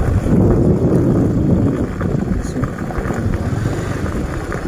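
A vehicle engine running on the move, with wind buffeting the microphone; the engine noise is loudest in the first two seconds.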